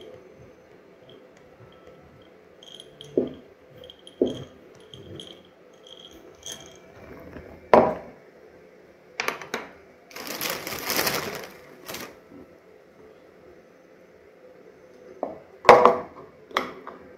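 Glass jars, metal lids and utensils handled on a wooden table: scattered clicks and knocks, the loudest near the end. A dense hissing, rattling burst of about a second and a half comes around ten seconds in.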